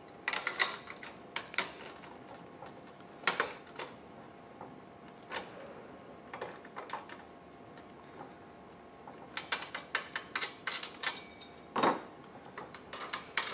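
Small metal clicks and knocks from speed skates being mounted and levelled in a metal skate-sharpening jig: scattered single clicks, a run of quick clicking about nine seconds in, and a heavier knock near twelve seconds.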